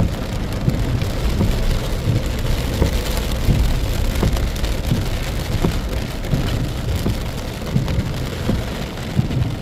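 Heavy rain pouring steadily, with a low rumble and frequent low thumps from strong wind gusting against the microphone.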